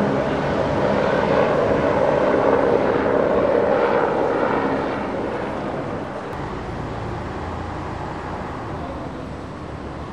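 A helicopter flying past, loud for the first few seconds and then fading away about halfway through.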